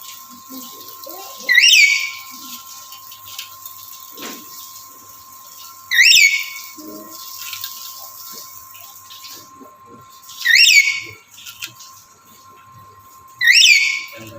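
Black-capped lory calling: four loud, short calls a few seconds apart, each a quick rising note. It is a male's breeding call to a female. A faint steady hum runs underneath.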